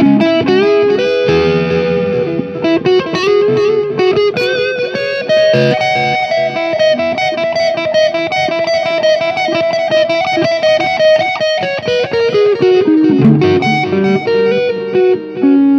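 Electric guitar played through a Boss MT-2 Metal Zone distortion pedal into a Soldano SLO 30W Mini amp head, picked up by a microphone at the amp. It plays distorted lead phrases, with one long sustained note held for about six seconds in the middle.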